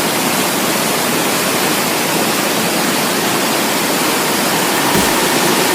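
Waterfall: a steady, even rush of falling water, with a brief low bump near the end.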